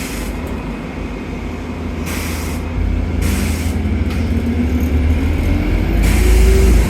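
London bus heard from inside the cabin: a steady deep engine rumble, with a whine that rises in pitch and grows louder near the end as the bus speeds up. A few short hisses of air break in.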